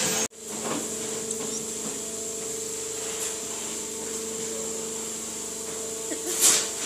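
Steady hum of bakery factory machinery, with a low tone and a higher tone held throughout, after a sudden brief dropout at the start. There is a short swish near the end.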